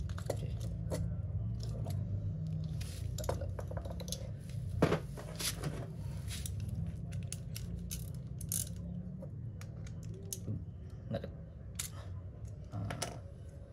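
Small metallic clicks and clinks of a motorcycle carburettor and a small box spanner being handled while the carburettor's main jet is unscrewed, the sharpest clink about five seconds in. A steady low hum runs underneath.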